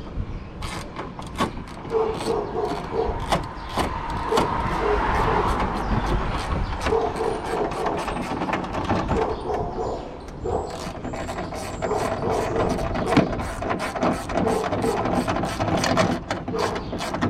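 Hand ratchet clicking in repeated strokes as it drives in a screw holding a new trunk latch.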